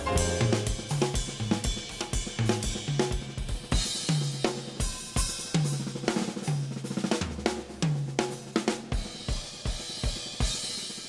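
Acoustic jazz drum kit playing a solo break: snare, bass drum, hi-hat and cymbals, with tom-tom strokes recurring about once a second, each dropping slightly in pitch.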